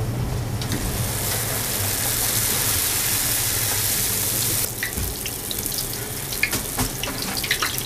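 Frybread dough deep-frying in hot oil in a cast-iron skillet: a loud, dense sizzle as the dough goes in, which drops off suddenly after about four and a half seconds into a steady crackling and popping of bubbling oil.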